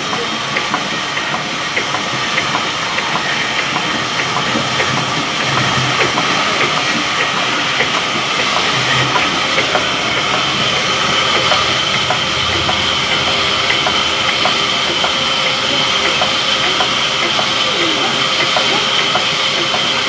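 Sawmill band saw running steadily with a high whine, with workers' voices over it.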